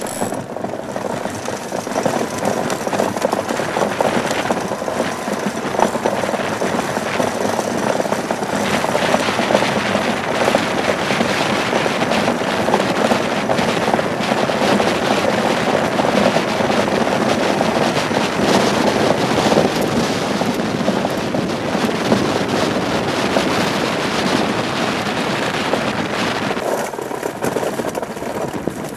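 Iceboat's steel runner blades skating over hard pond ice at speed: a steady, rough grinding hiss full of fine crackle, easing a little near the end.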